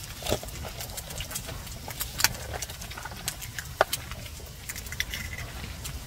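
Egg and fried rice frying in oil in a camp-stove skillet, a steady crackle of small pops and spatters. There are a few sharper clicks, the loudest about two and about four seconds in.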